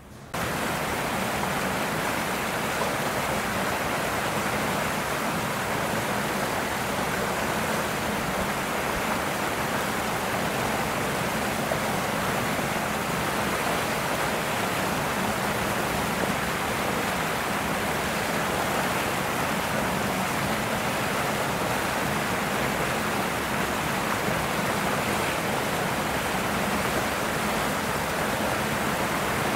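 Steady, even rushing noise with a faint low hum, starting suddenly just after the beginning and holding level throughout.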